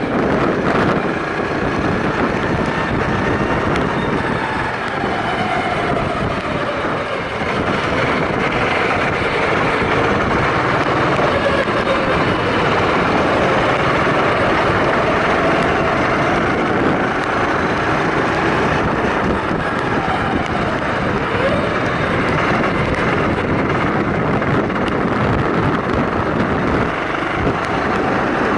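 Onboard sound of a kart driving on a wet track: its engine rising and falling in pitch as it speeds up and slows for corners, under heavy wind noise on the microphone.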